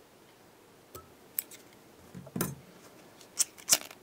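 A few short, sharp snips and clicks of fly-tying scissors trimming the tying thread at the hook, with a lighter struck near the end; the last two clicks are the loudest.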